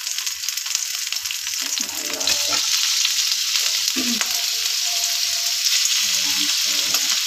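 Raw chicken pieces and sliced onion sizzling in a frying pan as they are stirred with a slotted spatula. The sizzle grows louder a little over two seconds in.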